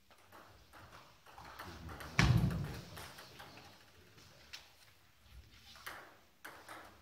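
Table tennis ball clicking off bats and the table during a rally, in short sharp knocks. There is one loud thud about two seconds in.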